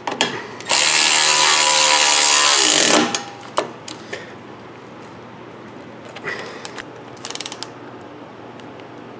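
Milwaukee cordless electric ratchet runs for about two seconds, driving an exhaust flange nut down to tight, its whine sagging in pitch as it stops. A few single clicks follow, then a quick run of rapid clicks near the end.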